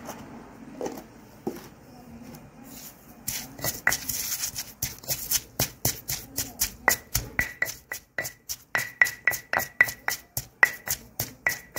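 Granite pestle pounding shredded herbs and salt in a stone mortar. It starts about three seconds in and settles into a steady beat of about three or four strokes a second, each stroke a sharp knock with a short ring of the stone.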